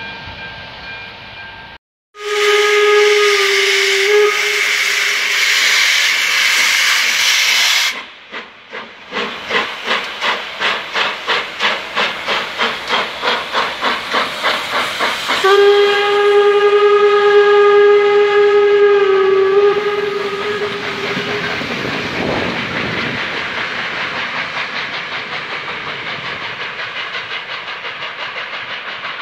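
ČSD class 475.1 steam locomotive sounding its whistle over a loud hiss of escaping steam, then starting away with sharp exhaust chuffs at about three a second. A second long whistle follows, and the chuffing goes on more faintly as the train pulls out.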